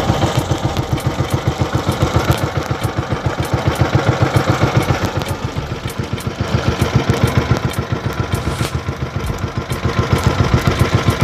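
Small engine of a motorized outrigger boat (bangka) running steadily, with a rapid, even put-put beat.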